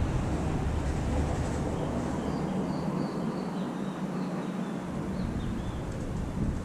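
Faint series of short, high bird chirps, some dropping in pitch, over a steady outdoor rumble and hiss.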